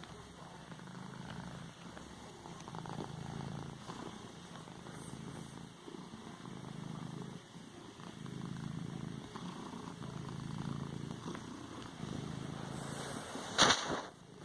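Domestic cat purring, the low rumble swelling and fading with each breath about every two seconds. Near the end comes a brief loud scratchy rustle.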